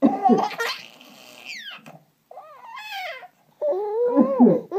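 Five-month-old baby girl giving a string of high-pitched squeals, one falling sharply in pitch, the last the longest and loudest. The string opens with a short noisy burst.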